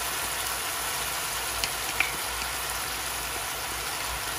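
Teriyaki sauce sizzling and bubbling in a hot non-stick pan of fried chicken pieces, just poured in, a steady hiss. Two light clicks of a wooden spoon about halfway through.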